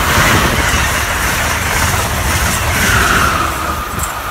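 SEPTA Regional Rail electric multiple-unit train passing close at speed: a loud, steady rush of wheels on rail and air. The rushing drops in pitch about three seconds in.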